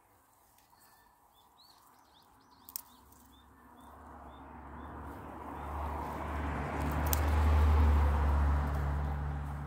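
Small birds chirp faintly and briefly at first. Then a steady low engine hum with a rushing noise swells up over several seconds, loudest near the end, like a motor passing at a distance.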